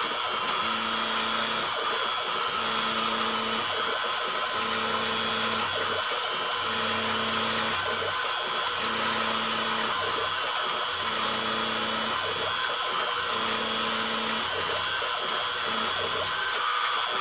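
CNC-converted mini mill peck-drilling into a wooden board: the spindle motor runs steadily, while a low hum comes in short spurts about every two seconds as the drill plunges and retracts on the Z axis. Near the end a higher steady tone joins in.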